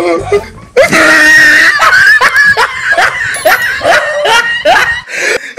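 Human laughter mixed with screaming: a dense run of short, rapid cries and a few held high screams, starting about a second in.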